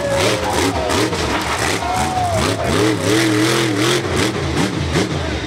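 Monster truck engine revving hard, its pitch swinging up and down several times while the truck pulls a wheelie and drives off.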